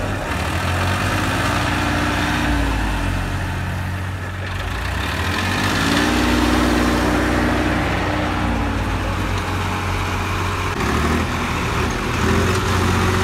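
Tractor diesel engines, a Swaraj 735 FE and a Massey Ferguson, running with a steady low drone and revving up and falling back a few times, lined up for a tug-of-war pull.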